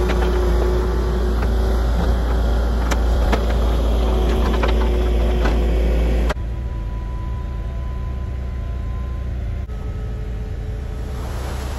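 A heavy engine running steadily. About six seconds in the sound cuts abruptly to a quieter steady engine sound with a faint high whine.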